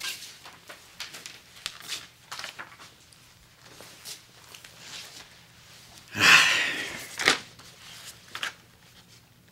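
Magazine pages rustling and turning as they are leafed through, a series of short papery crackles. A brief louder pitched sound comes about six seconds in.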